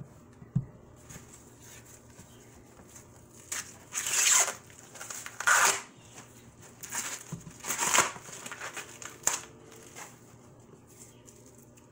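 Green husks being torn by hand off fresh ears of white corn: several separate ripping and rustling bursts, the loudest around the middle.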